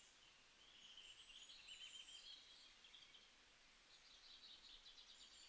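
Near silence, with faint bird chirping in the background.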